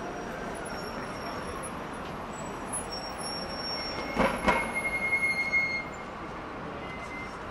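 City street traffic noise, with two sharp knocks about four seconds in followed by a loud, high metallic squeal lasting about two seconds.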